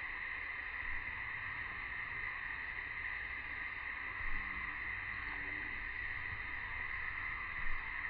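Steady high-pitched drone of a summer insect chorus, most likely cicadas, over a low rumble, with three brief soft knocks about one, four and eight seconds in.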